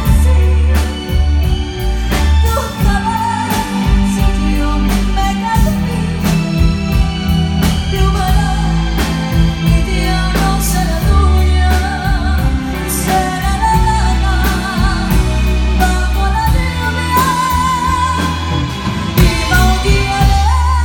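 A woman singing live into a microphone, amplified through a PA, over a band with drums, bass and electric guitar. Near the end she holds a long note with vibrato.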